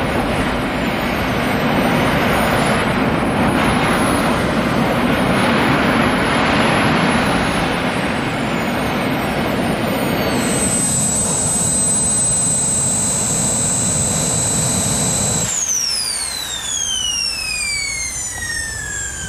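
Three small turbojet engines on a go-kart running with a roar and a high whine that wavers in pitch. About ten seconds in the whine settles to a steady tone, and about fifteen seconds in the roar cuts off and several whines fall in pitch together as the turbines spool down after shutdown.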